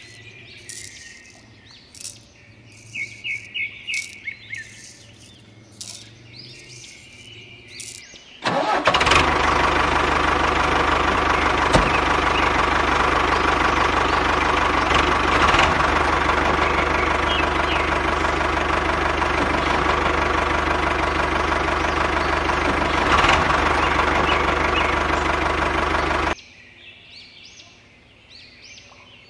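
A motor runs steadily for about eighteen seconds. It starts suddenly about eight seconds in and cuts off abruptly near the end. Before it there are bird chirps and a few light clicks.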